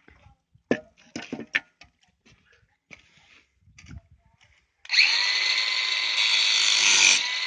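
A few sharp clicks and knocks, then a handheld power tool starts up about five seconds in and runs steadily with a high whine.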